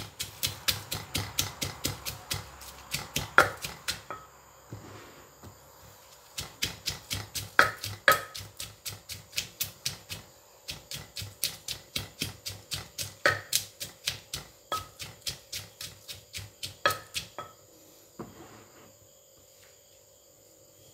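Wooden pestle pounding in a clay mortar, crushing chili, garlic and yard-long beans, about three strokes a second; a few harder blows ring. The pounding pauses about four seconds in, resumes, and stops near the end.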